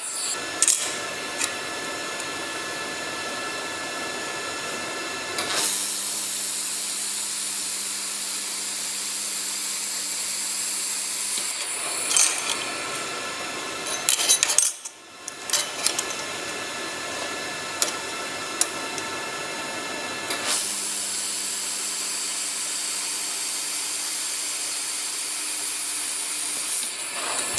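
Handheld fiber laser welding machine working on stainless steel: a steady hiss with a faint steady hum, growing louder and brighter in two long stretches of welding, with scattered clicks and a brief drop in sound about halfway through.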